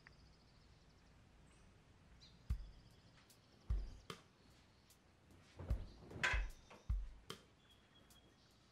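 Bedding being shaken out and spread over a bed: about half a dozen dull thumps and a fabric swish a little past the middle, with faint high chirps in the background.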